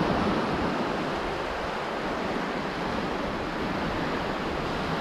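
Small surf breaking and washing up a sandy beach, a steady wash of waves.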